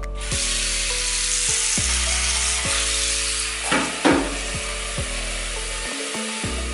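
Water running steadily from a kitchen tap into a pot in a stainless steel sink, with a brief clatter about four seconds in. Background music plays underneath.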